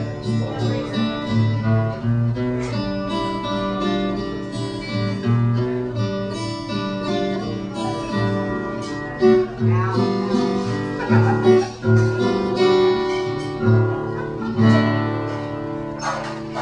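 Acoustic guitar being played, plucked notes ringing over repeated low bass notes.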